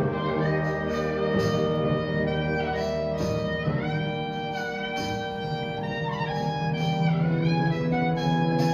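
School concert band playing a piece: woodwinds, brass and percussion hold sustained chords while the upper voices play runs that rise and fall.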